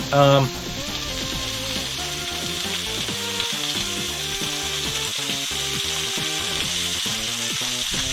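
Burgers sizzling on a grill, a steady frying hiss, with background music.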